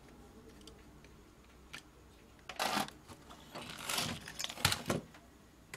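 Handling noise at a repair bench: clicks, rattles and scraping in three short clusters over the second half, after a quiet start.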